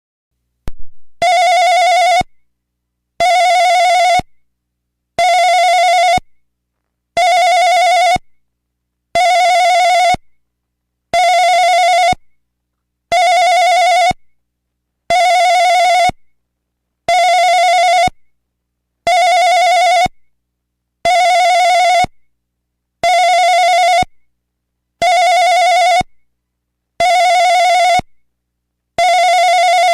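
Karaoke room telephone ringing in a steady ring-pause cadence: about fifteen warbling rings, each about a second long and two seconds apart, after a short click just before the first ring.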